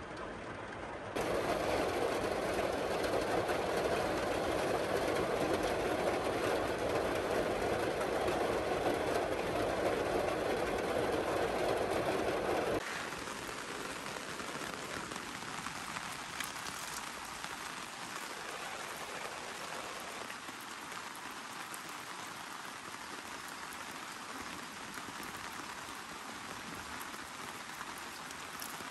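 Heavy rain pouring down in a steady rush. It jumps louder about a second in, then drops abruptly to a lighter, quieter rain at about 13 s.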